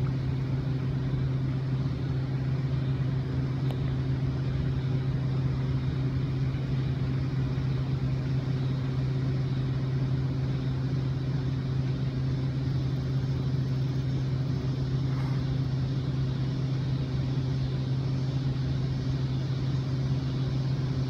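A steady low machine hum with fainter overtones above it, over a faint high hiss.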